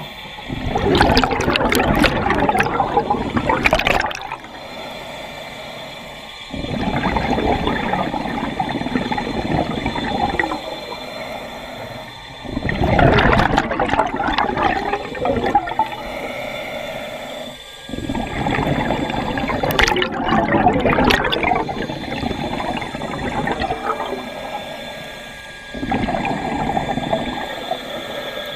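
Underwater breathing through a scuba regulator, recorded through a camera housing: three loud rushes of exhaled bubbles, with quieter breathing sounds in between, in a slow breath rhythm.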